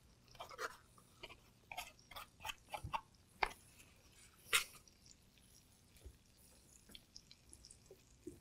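Small kitchen clicks and scrapes as dressing is spooned out of a small ceramic bowl over roasted broccoli in a metal baking pan and tossed with a silicone spatula. There are two sharper clicks a little past the middle, and only light ticks after that.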